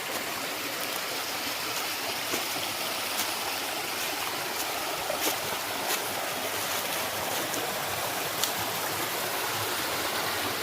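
Kziv stream running over rocks: a steady rush of flowing water, with a few light clicks.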